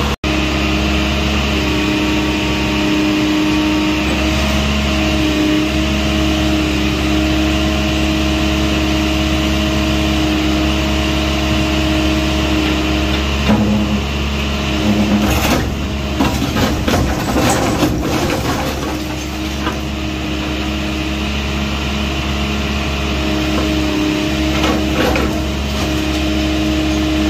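John Deere 310 backhoe loader's diesel engine running steadily as its arm and bucket push against a brick wall. About halfway through, several seconds of cracking and clattering as bricks break off the wall and tumble down.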